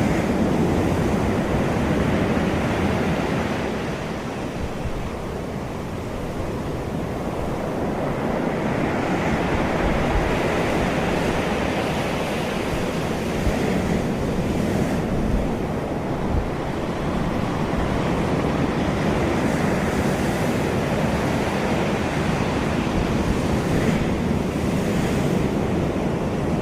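Ocean surf washing steadily, swelling and easing slowly, with wind.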